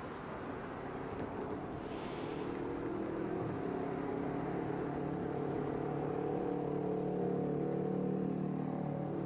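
A rail vehicle's running hum: a stack of steady pitched tones sets in about three seconds in and slowly grows louder, after a brief hiss about two seconds in.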